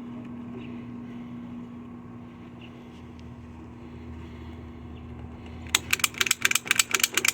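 A steady low hum, then about six seconds in a lock pick gun starts clicking rapidly, about ten sharp snaps a second, as it strikes the pin tumblers of a door lock.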